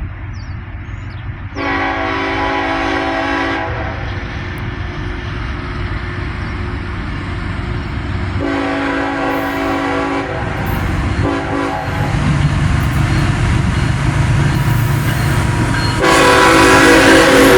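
Diesel freight locomotive CSX 3301 sounding its horn in the grade-crossing pattern: two long blasts, a short one, then a final long blast starting near the end. Underneath, the locomotive's engine rumble grows louder as the train approaches.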